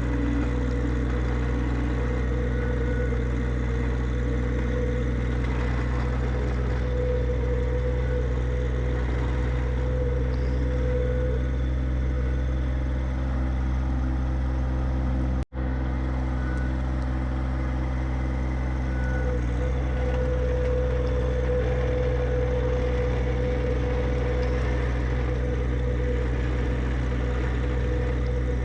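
John Deere 1025R subcompact tractor's three-cylinder diesel engine running steadily while plowing snow. The sound cuts out for an instant about halfway through.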